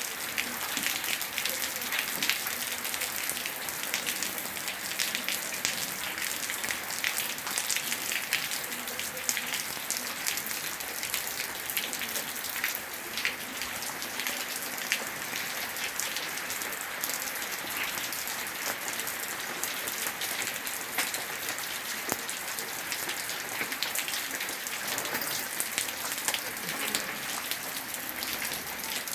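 Steady, gentle rain falling, with a constant hiss and many small drops ticking throughout.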